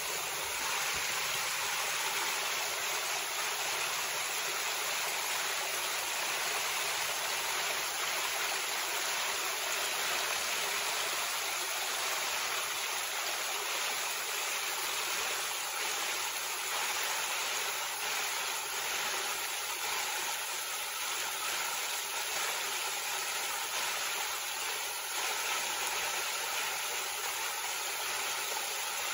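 Shallow creek water running steadily over small rock ledges and cascades. In the second half a faint steady electric-motor whine from the RC crawler trucks sits under the water.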